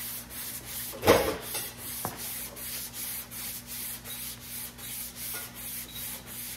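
320-grit sandpaper rubbed back and forth by hand over primed truck bodywork in steady strokes of about three a second, cutting down the guide coat; one stroke about a second in is louder. A faint steady hum runs underneath.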